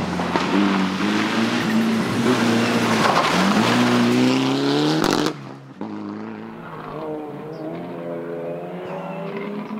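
A Mitsubishi Lancer Evolution rally car passes close at full throttle on a dirt stage, its turbocharged four-cylinder engine loud over the hiss of tyres on the loose surface, the revs dipping briefly and then climbing again. About five seconds in the sound cuts off abruptly, and another rally car is heard at a distance, its engine rising in pitch as it accelerates.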